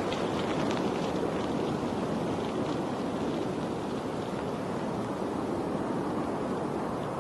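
Steady rush of flowing water at an even level, with faint light splashes in the first few seconds.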